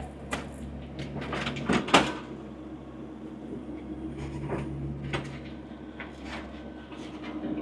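Compact diesel tractor engine running steadily under work, with a series of sharp knocks and clunks from the loader and backhoe gear, the loudest about two seconds in.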